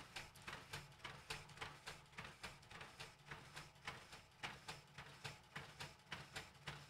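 Epson FastFoto FF-680 photo scanner feeding a batch of snapshots: a faint, quick run of soft clicks and rustles, about three or four a second, over a low steady hum.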